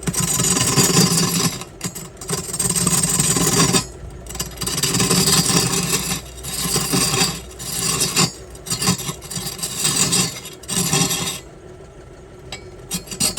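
Turning tool scraping and cutting into wood spinning on a wood lathe, in repeated rough passes of one to two seconds with short breaks. The passes stop near the end.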